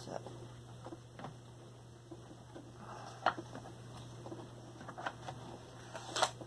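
A few scattered clicks and knocks of hard plastic from a vintage Sizzix die-cutting press being worked by hand, its lever handle raised and its die tray slid out; the loudest knock is about three seconds in.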